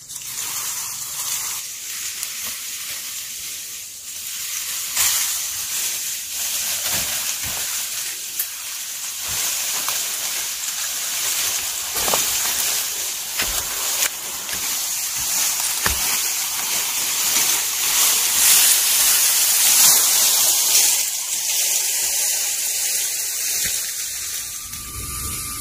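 Water running and splashing: a steady hiss with scattered small splashes.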